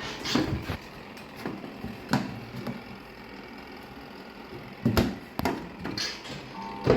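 Several knocks and clattering handling noises on a twin-tub washing machine, then a steady electrical hum from its spinner motor starting near the end.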